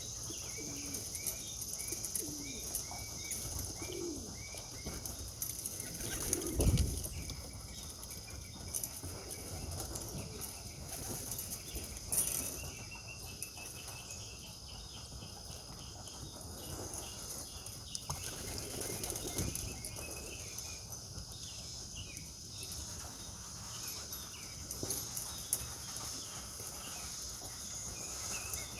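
Young racing pigeons flapping their wings and cooing around the loft, with the loudest flurry about seven seconds in. A steady high insect buzz runs underneath.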